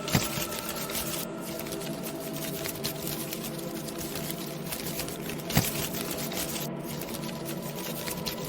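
Layered Halloween ambience soundscape: continuous dense crackling and rattling over a steady drone of held low tones, with two sharp knocks, one right at the start and another about five and a half seconds later.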